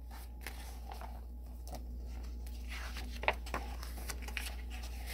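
Pages of a hardcover picture book being handled and turned: soft paper rustling with a few light clicks and taps, over a steady low hum.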